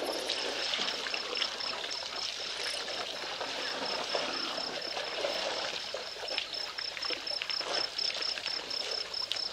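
An insect chirping steadily, about four pulses a second, over a continuous crackling, rustling noise.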